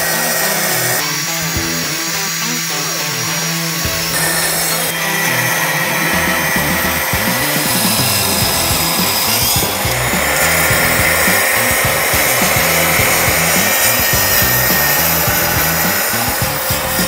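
TICHOP TPS-140BL-B cordless brushless plunge track saw running on its guide rail and cutting through wooden boards, with background music underneath.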